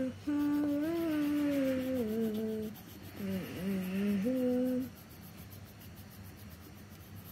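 A person humming a slow, wordless tune in long held notes, with the pitch stepping and gliding down and dipping once; it stops about five seconds in.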